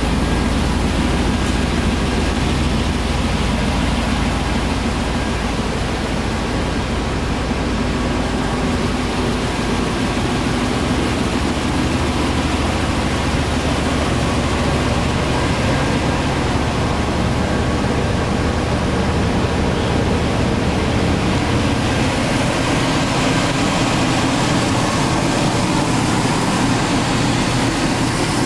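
1996 GMC Sierra 1500's 5.7-litre V8 idling steadily.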